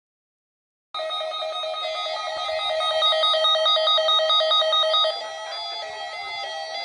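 Electronic alert tones start abruptly about a second in: a fast trill on several fixed pitches, like a ringing telephone. Near the end they drop in level and shift to a different stepped pattern of tones.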